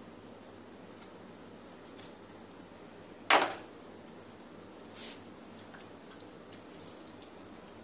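Quiet kitchen handling with one short, loud knock about three seconds in. Near the end, small squelching clicks as a lemon half is squeezed by hand over a bowl of marinade.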